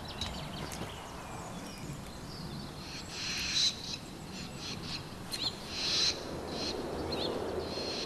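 Swallows giving a run of sharp, high, quickly bending alarm calls from about three seconds in, a panicked reaction to a barn owl at their nest. The calls come over a low, steady background noise.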